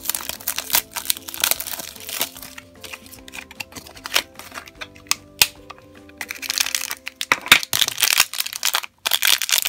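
Clear plastic wrap crinkling and crackling as a small toy box is unwrapped and its plastic contents handled. The crackling is densest near the end, over soft background music.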